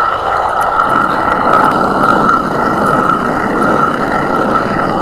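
Hand-turned stone quern (chakki) grinding pearl millet: the upper millstone is turned steadily on the lower, making a continuous coarse grinding of stone on stone and crushing grain. This is the first, coarse pass, breaking the millet into small pieces before a second, finer grind.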